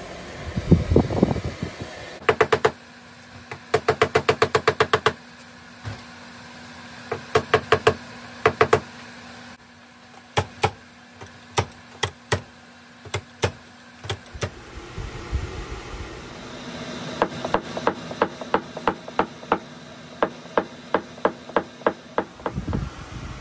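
Paintless dent repair tools striking the panel: a slide hammer jerking on glued pull tabs and a hammer tapping down through a knockdown tool, in quick runs of sharp taps and spaced single strikes. There is a low thud about a second in.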